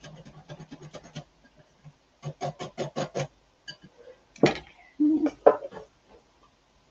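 Wire balloon whisk beating a thick white-sauce mixture in a glass bowl: a quick run of light clicks against the bowl, then a burst of about six rhythmic strokes. Near the end come a few louder knocks and a clatter as the whisk is laid down on a glass board.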